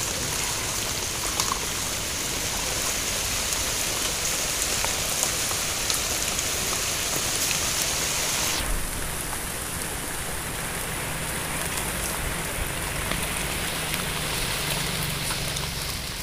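Steady dense hiss of fine crackling noise; its highest part drops away suddenly about nine seconds in.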